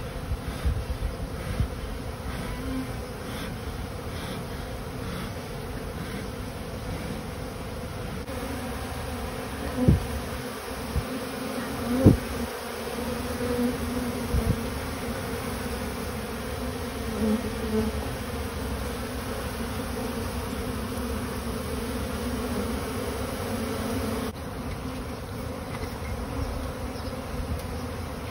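Steady buzzing hum of a large number of honey bees flying around their disturbed colony. A few sharp knocks stand out, a cluster of bumps in the first couple of seconds and two louder knocks about ten and twelve seconds in.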